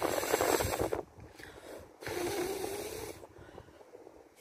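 A person blowing hard puffs of breath onto a stunned bird held close, in an attempt to revive it: two rushing blows of about a second each.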